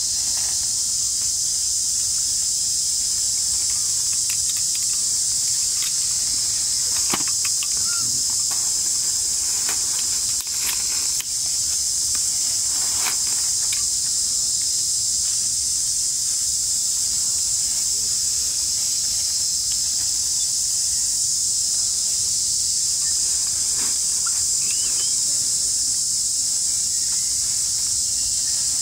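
A steady, high-pitched insect chorus drones without a break, with a few faint clicks in the middle of the stretch.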